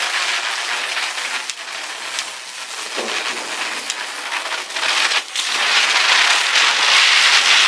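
Red-and-white ground chakkar (chakri) firecrackers spinning fast on the ground, giving a steady hissing fizz with a few faint pops. The hiss eases a couple of seconds in and grows louder again over the last couple of seconds.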